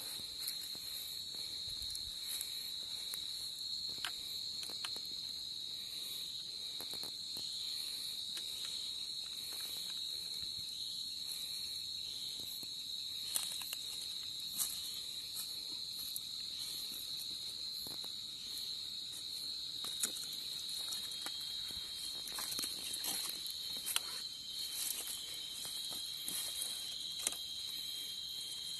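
Insects chirring in a steady, high-pitched drone, with a second, slightly lower tone joining about two-thirds of the way through. Scattered sharp clicks and crackles sound over it.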